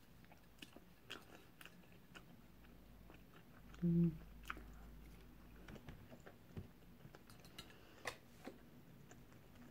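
A person chewing a mouthful of egg fried rice mixed with crispy seaweed, with soft scattered mouth clicks and smacks, and a short 'mm' hum about four seconds in.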